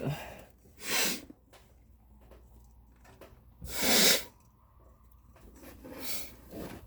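A man sneezing, set off by dust allergy: a sneeze about a second in and a louder one about four seconds in, then a fainter rush of breath near the end.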